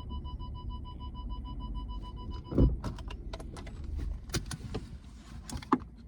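A car's electronic warning chime beeping rapidly and evenly, then stopping with a heavy thud about two and a half seconds in. Sharp clicks and rattles follow, like keys and car fittings being handled.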